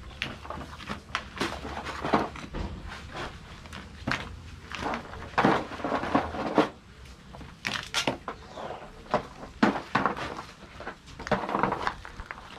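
Stones knocking and clattering against each other and against breadfruit and taro as they are lifted with wooden sticks and laid over the food in an umu earth oven. The knocks come irregularly, bunching into louder clatters at several points.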